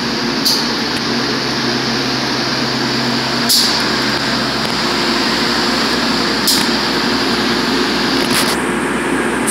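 R46 subway car standing at the platform, its onboard equipment giving a steady hum and hiss. Short, sharp hisses come about every three seconds.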